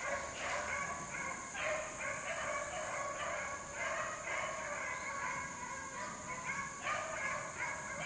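Beagles baying on a rabbit's track: several hounds giving voice in repeated, overlapping bawls, over a steady high hiss.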